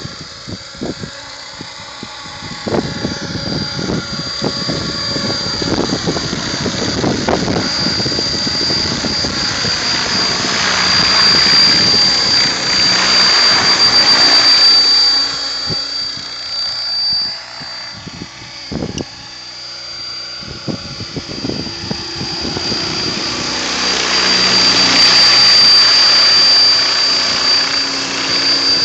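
Mikado Logo 600 electric radio-controlled helicopter in flight: rotor blades whooshing over a steady high whine from the drive. It grows louder twice as it swoops close past the microphone, which picks up low buffeting.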